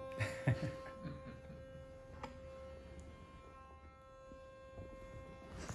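Electric toothbrush running with a faint, steady buzz, switched off near the end, a few soft knocks and rustles early on.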